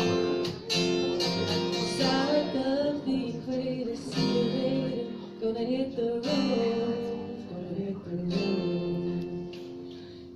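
Acoustic guitar strummed in a steady rhythm, with a singing voice holding long wavering notes over it, played live.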